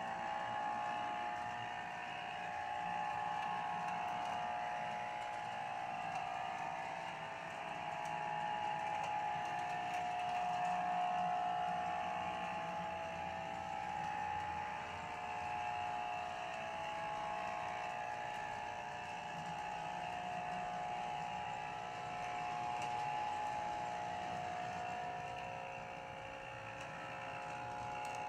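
HO-scale brass model steam locomotive with a frame motor running along the track: a steady motor and gear whine with wheel noise, plus a hum from its onboard PFM sound speaker, which is switched off and only gives speaker feedback. The whine swells and fades every few seconds as the engine moves around the layout.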